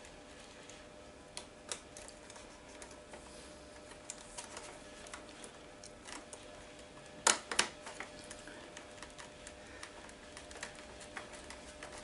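Small plastic clicks and taps as a replacement power switch is handled and pressed into the plastic switch housing of a Dyson DC07 vacuum cleaner's handle, with two sharper clicks in quick succession about seven seconds in.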